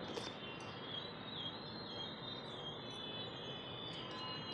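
Faint steady background noise with thin, high-pitched chirping over it.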